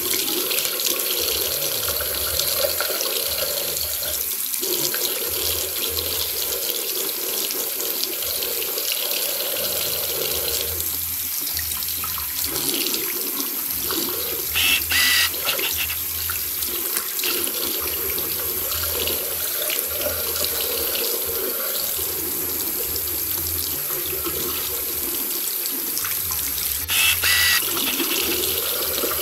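Thin stream of water running from a bathroom tap into a ceramic sink, splashing steadily as a cat paws at and drinks from it. Two brief, louder, higher-pitched sounds break in about halfway through and near the end.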